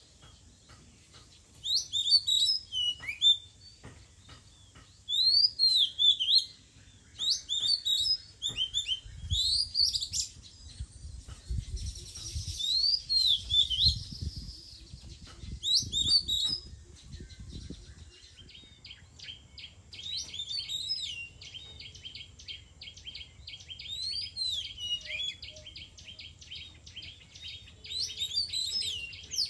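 Oriental magpie-robin singing: loud, varied whistled phrases every second or two, then a fast run of short repeated notes in the second half. A low rumble is heard partway through.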